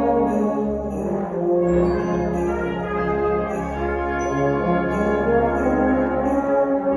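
A school concert band plays sustained chords, with brass and woodwinds together and bell tones sounding over the top.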